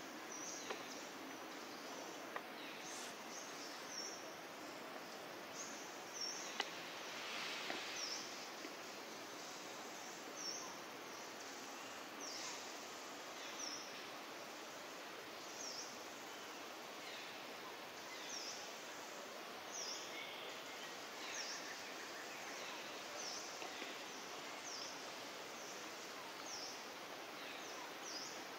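Outdoor ambience: a steady hiss, with a short, high, falling chirp repeating about every second and a half.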